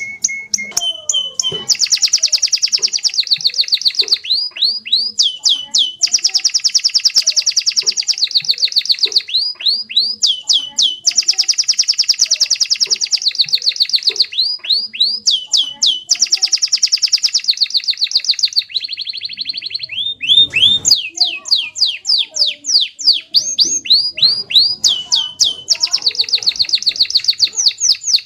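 Domestic canary singing a long, continuous song: long, very fast trills of rapidly repeated notes, alternating with phrases of separate notes that sweep downward in pitch, with only brief pauses between phrases.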